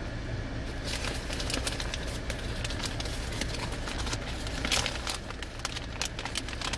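Paper sandwich bag crinkling and rustling as a Popeyes chicken sandwich is unwrapped. The crackles come in irregular bunches, loudest a little before five seconds in.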